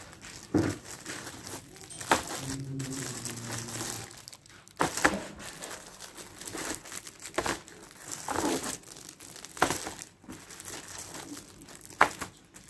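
Plastic wrapping film on framed paintings crinkling and rustling as the frames are handled and moved, in irregular bursts with a few sharper snaps.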